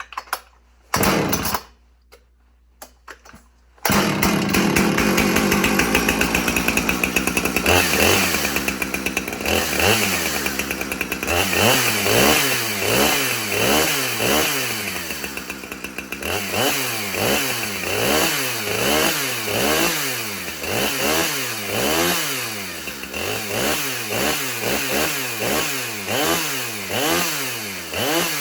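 Stihl two-stroke chainsaw pull-started: a couple of short pulls or coughs in the first two seconds, then it catches about four seconds in and runs fast. From about twelve seconds in its engine speed rises and falls over and over, roughly once a second.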